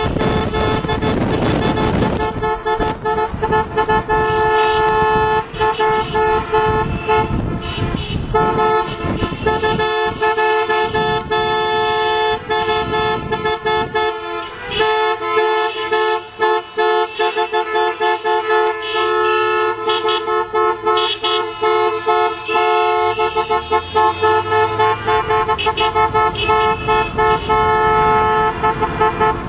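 Several car horns honking together, overlapping short toots and longer held blasts with hardly a break: the celebratory honking of a wedding car procession.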